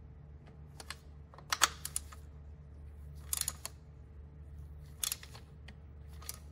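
Irregular sharp clicks from a hand wrench and socket tightening the mounting nuts of a transfer case shift motor, the loudest about a second and a half in. A steady low hum runs underneath.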